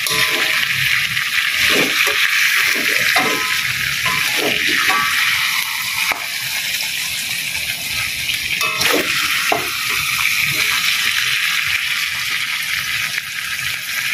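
Chicken pieces, onions and chillies sizzling in a wok in sweet soy sauce, turned with a slotted spatula that scrapes and knocks the pan now and then.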